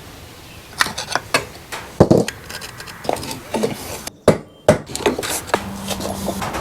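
Hand tools clanking and knocking against the metal parts of a 1987 Suzuki QuadRunner 250 during disassembly: a series of irregular sharp knocks and rattles.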